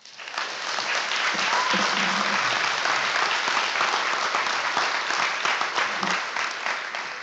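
Audience applause in a school assembly hall, many hands clapping. It starts right after a reading ends and fades toward the end.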